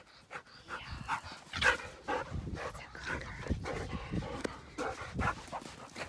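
A dog yipping and barking repeatedly in short calls, mixed with the dull thuds of footsteps on loose sand.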